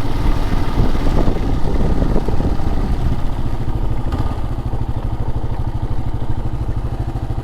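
Motorcycle engine running at low speed, settling about halfway through into a steady idle with even, rapid low pulses.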